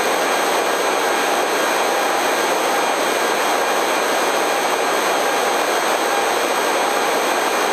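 Eurocopter EC135 twin-turbine helicopter in forward flight: a steady, even rush of turbine and rotor noise with faint steady whines, unchanging throughout.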